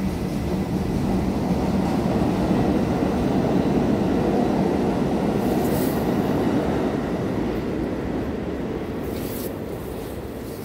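New York City subway train rumbling out of the station: steel wheels on the rails, swelling to a peak in the first few seconds and then fading steadily as the train pulls away.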